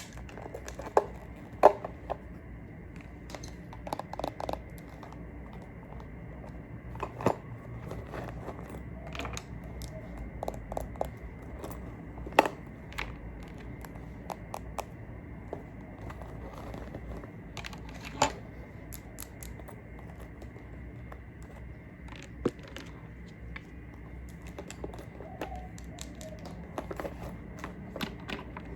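Makeup products and tools being handled: irregular light taps and clicks, with a few sharper, louder taps.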